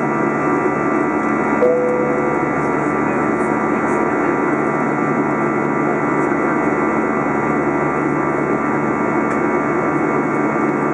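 Steady cabin noise inside an Airbus A320 in flight: the jet engine's rumble and rushing airflow, heard from a window seat beside the engine, with several steady whining tones over it.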